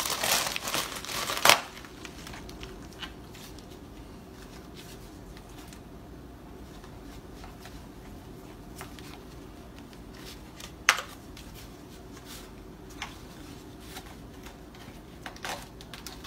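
Packaging being unwrapped by hand: crinkling and tearing for the first second and a half, ending in a sharp snap, then quiet handling with a few scattered clicks, one louder about eleven seconds in.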